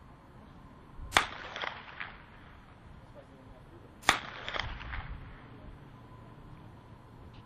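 Two blank-pistol shots about three seconds apart, each followed by a few fainter echoes: the gunfire test fired during the Schutzhund obedience heeling exercise, where the German shepherd must stay steady at heel.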